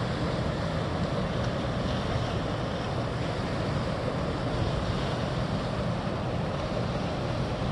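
Steady rushing noise of the Susquehanna pouring through Conowingo Dam's open spillway gates, mixed with wind on the microphone.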